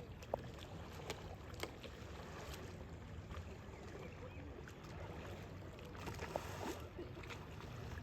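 Water sounds around a sailboat's hull over a steady low rumble, with scattered small knocks and clicks, the sharpest about a third of a second in.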